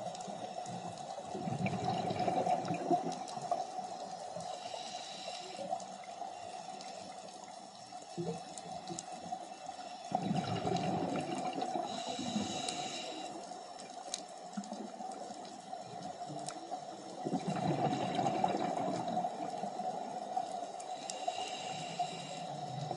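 Scuba diver breathing underwater through a regulator. There are three bubbling exhalations several seconds apart, each followed by a short hissing inhalation. Scattered faint clicks and a steady hum run underneath.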